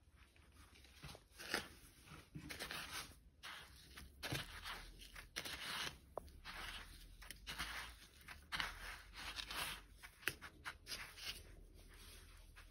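Fingers pressing and turning an egg-coated shrimp in a bowl of dry Italian bread crumbs: the crumbs crunch and rustle softly in uneven strokes, one after another.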